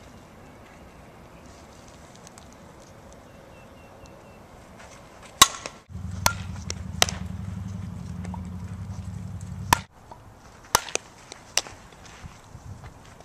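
Sharp cracks of a softball being hit and fielded in infield drills, coming singly about a second apart. The loudest crack is about five seconds in. A steady low hum runs under them for about four seconds in the middle.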